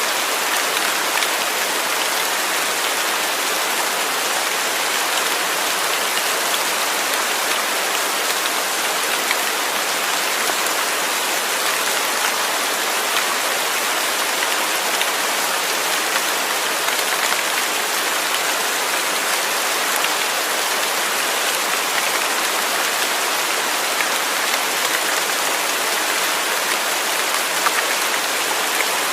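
Steady rain falling, an even hiss with scattered small drop ticks, no thunder.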